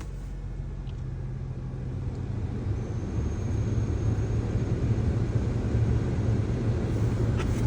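2020 Nissan Sentra SR's 2.0-litre four-cylinder engine idling just after starting, a steady low hum that grows a little louder; it sounds healthy.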